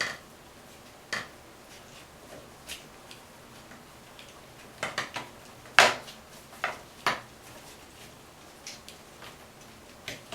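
Scattered sharp metallic clicks and clinks from handling the shower valve's small metal retaining clip and tools, loudest about six seconds in.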